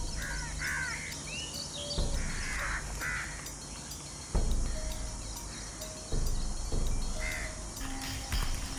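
Short, harsh bird-like calls, several in the first three seconds and one more near the end, over a low steady hum. A few dull thumps, about two, four and six seconds in, are the loudest sounds.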